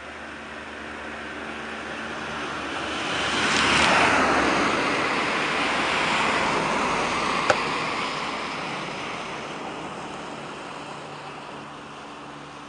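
A vehicle passing on the road: a tyre-and-road whoosh swells to a peak about four seconds in, then fades away slowly. A single sharp click comes a little past halfway.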